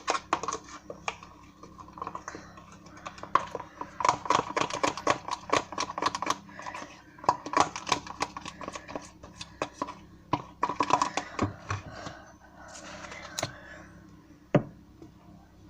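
Slime being squished and kneaded by hand, giving fast runs of sticky clicking and popping with short pauses between handfuls.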